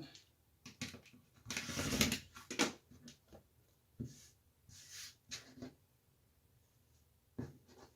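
Hand work on a quilt block as it is squared up: fabric and an acrylic ruler handled on a cutting mat. There is a short scraping rustle about two seconds in, then a few separate clicks and knocks.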